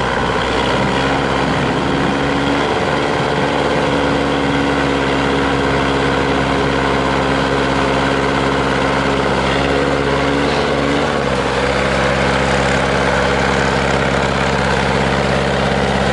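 GAZ-66 truck's V8 petrol engine running at steady revs as the truck crawls through deep snow. Its note shifts slightly about two thirds of the way through.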